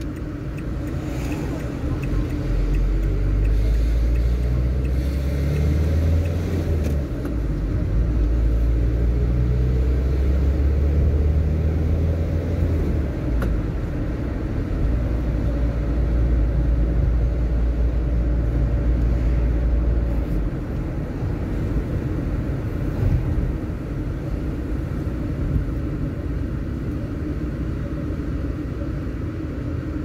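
Car driving at town speed, heard from inside the cabin with the windows open: a steady low rumble of engine, road and wind noise. It is heaviest through the first two-thirds and eases after that.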